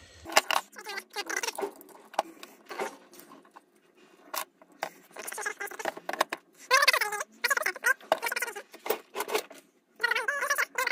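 Plastic parts of a drill's housing being handled and fitted back together: a quick, irregular run of clicks and rattles with short squeaks.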